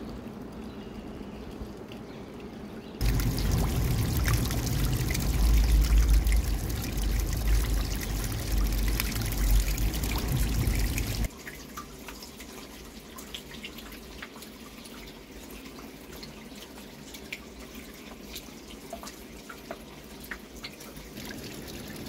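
Water trickling and dripping over rock. It rushes much louder and deeper for about eight seconds from around three seconds in, then drops suddenly to a gentle trickle with scattered drips.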